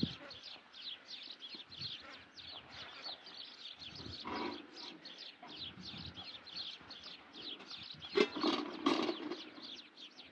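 Small birds chirping steadily, a rapid run of short falling chirps at about three a second. A louder, lower sound comes about four seconds in and again, loudest, around eight to nine seconds.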